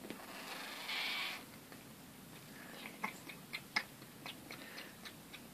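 Exotic Persian cat making wet tongue clicks and smacks, sharp and irregular at about two or three a second, as its back is scratched. A short rushing, breathy noise comes first, fading out after about a second and a half.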